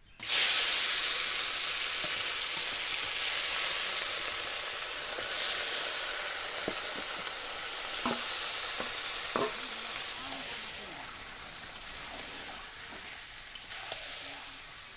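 Marinated meat dropped into hot mustard oil in a karai, setting off a loud sizzle that starts suddenly and slowly dies down as the pan fills. A few knocks and scrapes of a metal spatula against the pan are heard in the middle of it as the meat is stirred.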